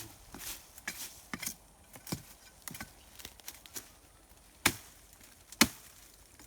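A metal digging tool striking soil and stones in a run of scattered short knocks, with two sharp, louder strikes about a second apart past the middle, as a plant's root is dug out of stony ground.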